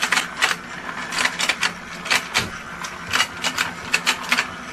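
Battery-powered toy fishing game running: the motor hums steadily under a quick, irregular clicking of the turning pond, about three clicks a second.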